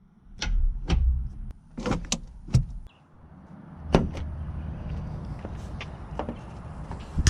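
Scattered knocks and clicks of something being handled. After a short break about three seconds in, a steady low rumble runs behind them.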